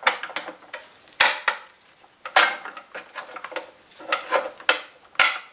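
Irregular metallic clicks and knocks as a mounting bolt is pushed out of a Puch Maxi moped's engine mount and the freed engine shifts against the frame, with two heavier knocks about a second in and near the end.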